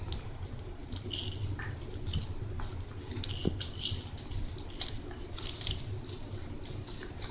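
A handheld rattle shaken in short, irregular bursts: scattered bright shakes with small gaps between them.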